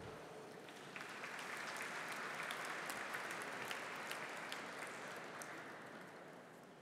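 Audience applauding, fairly faint, building up about a second in and dying away near the end.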